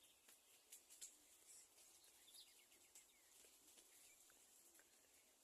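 Very faint outdoor ambience with scattered soft, high bird chirps and clicks, including a short run of falling chirps about two seconds in.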